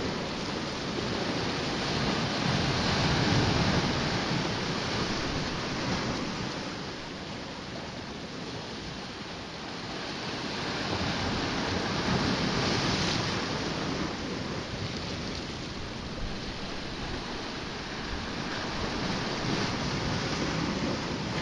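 Sea waves washing against a rocky shore, a steady rushing that swells and eases over several seconds.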